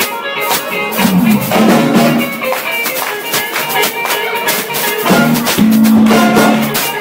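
A jazz big band playing, a drum kit keeping a steady beat under sustained notes from the band.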